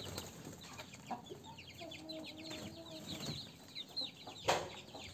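Young crossbred kampung × Bangkok chicks peeping, a rapid run of short falling cheeps, with a low drawn-out chicken call about two seconds in. A brief loud rustling noise comes near the end.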